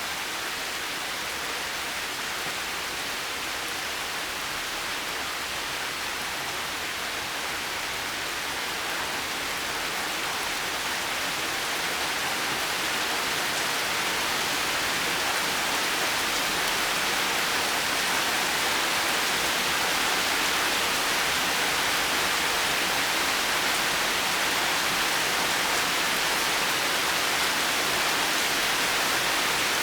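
Steady rain falling, an even hiss with no thunder, growing slightly louder partway through.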